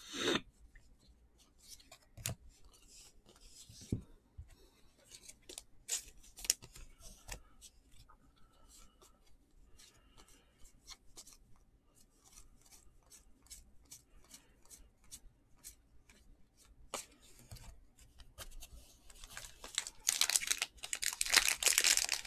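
Trading cards being handled, with scattered light ticks and rustles. Near the end the wrapper of a card pack is torn open and crinkled, the loudest sound.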